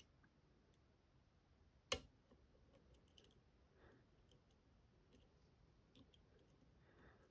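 Faint metallic clicking of a lock pick and tension tool working the pins of a tier-key lock, with one sharper click about two seconds in and a quick run of small clicks just after.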